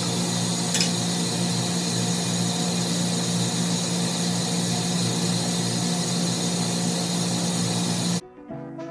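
Steady hum and hiss of boiler-room machinery running, with a single click about a second in. It cuts off suddenly near the end, and brass music begins.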